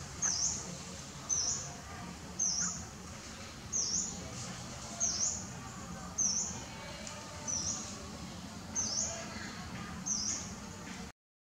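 A bird repeating a short, high chirp that dips and rises sharply in pitch, regularly about once every second, nine or ten times over a faint steady outdoor background. The sound cuts off abruptly just before the end.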